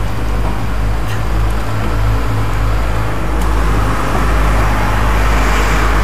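Small steel boat's engine running steadily with a deep low hum, under the rush of wind and water along the hull. A hissing rush of water swells over the last couple of seconds.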